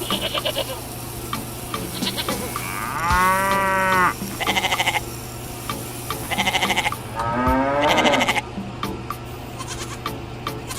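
An animal bleating twice, each call about a second long, with short buzzy bursts between the calls, over a steady low hum and regular faint clicks.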